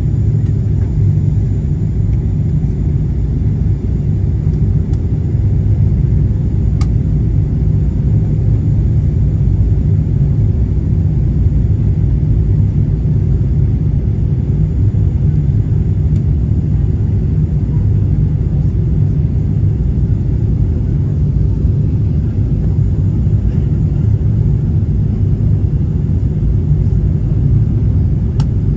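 Steady low rumble of engine and airflow noise inside a jet airliner's passenger cabin as it descends on approach to landing, with a faint steady tone above it.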